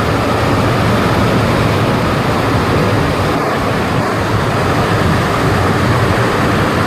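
Loud, steady rush of a large waterfall close by, an even roar of falling water with no let-up.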